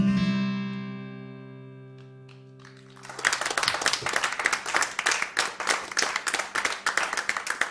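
Final strummed chord on an acoustic guitar rings out and fades away over about three seconds. Then audience applause starts suddenly and carries on.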